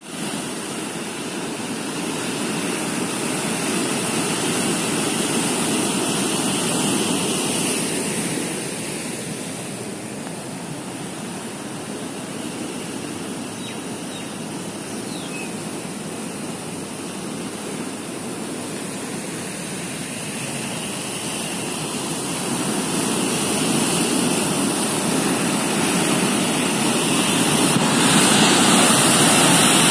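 Rain-swollen river rushing and churning in white, turbulent water: a steady rush of water that swells louder near the end.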